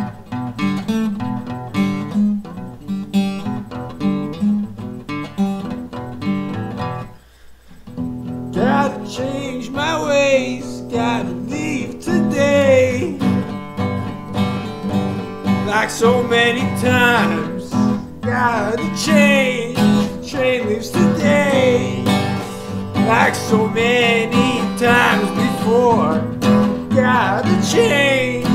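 Acoustic guitar strummed and picked, dropping out briefly about seven seconds in, then resuming with a man singing over it.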